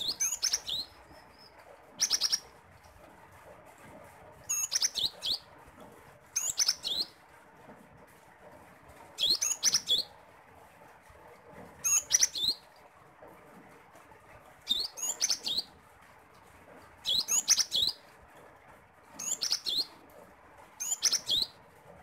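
Cinereous tit (gelatik batu) singing in short phrases of several rapid high notes, each phrase about half a second long and repeated every two seconds or so.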